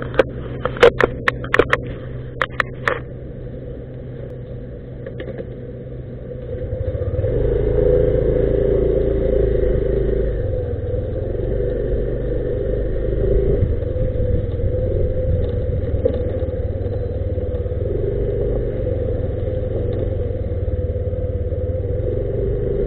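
Yamaha scooter engine running, with a quick series of sharp clicks in the first three seconds. About seven seconds in the engine picks up as the scooter pulls away, then runs steadily.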